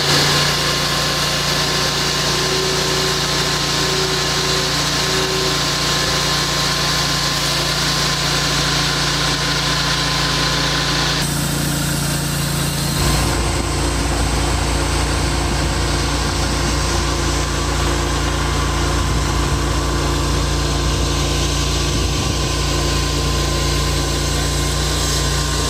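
Portable band sawmill's engine running steadily with the band blade turning. About eleven seconds in the sound changes, and from then on the engine runs rougher under load as the blade cuts through a squared log.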